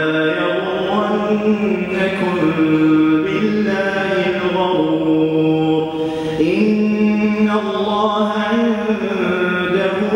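An imam recites the Quran aloud in a melodic chant, a single man's voice holding long drawn-out notes and bending between pitches.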